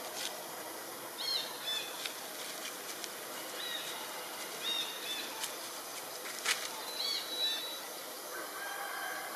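Small birds calling in woodland: a few short, high, arched chirps scattered over a steady outdoor hiss, with one sharp click past the middle.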